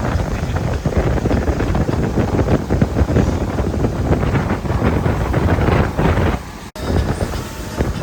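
Wind buffeting the microphone aboard a moving boat, a loud, gusty low rumble that drops out for an instant near the end.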